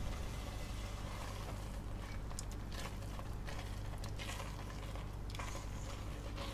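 Thick sweet azuki bean paste (anko) bubbling in a pot as a silicone spatula stirs it, giving a few faint scrapes and pops over a steady low hum.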